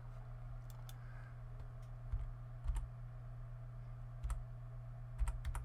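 Scattered keystrokes and clicks on a computer keyboard, a few single taps and then a quick cluster near the end, over a steady low hum.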